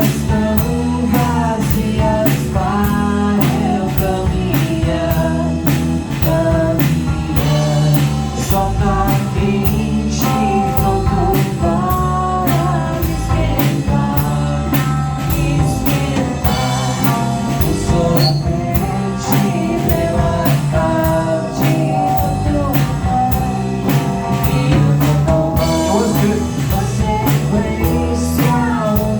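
Live rock band playing: drum kit keeping a steady beat, heavy bass, and a singer's voice over the top.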